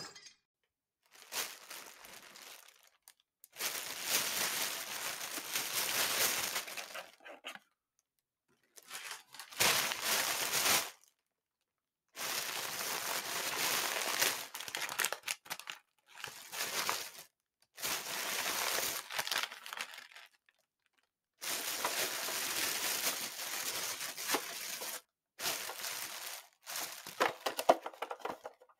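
A plastic bag crinkling and rustling in a series of separate handlings of a second or a few seconds each, with short silences between, as items are pulled out of it. A few sharp clicks near the end.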